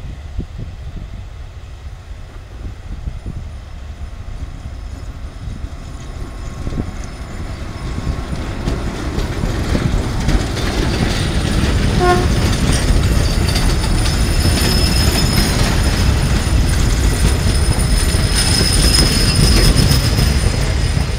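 A train of steelworks torpedo ladle cars passing close by, its wheels rumbling on the rails with a steady high metallic squeal. The sound swells from about eight seconds in and stays loud.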